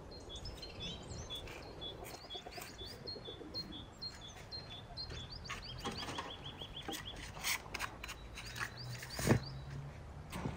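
Small birds chirping in a quiet yard: a run of short repeated chirps, then a quick trill around the middle. Later come a few knocks of clay bricks being set down, the loudest near the end.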